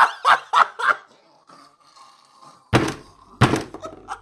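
A few quick sharp sounds in the first second, then two heavy thuds about two-thirds of a second apart, followed by a low rumble.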